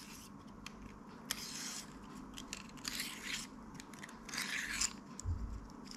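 Thin metal sections of a telescopic pen fishing rod scraping and clicking as they are handled and fitted together: three soft scrapes with light clicks between them.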